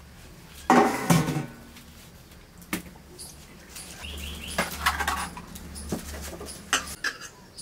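Bottle-gourd leaves being rinsed and handled by hand in a steel bowl of water: splashing, dripping and leaf rustling with scattered light clicks. A louder sound comes about a second in.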